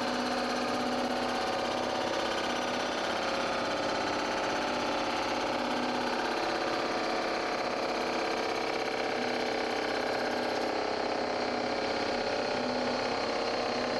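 Rottler surfacing machine's milling cutter head spinning and cutting across the deck of a clamped cylinder head: a steady, even machining sound with several held tones.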